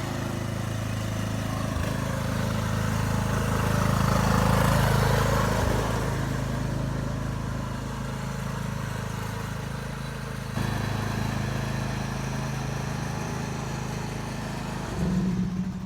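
Lawn mower's 16-horsepower, 540 cc engine running steadily as the mower is driven around a timed lap, getting louder about four to five seconds in as it comes closer, with a sudden change in the sound about ten and a half seconds in and a brief louder swell near the end.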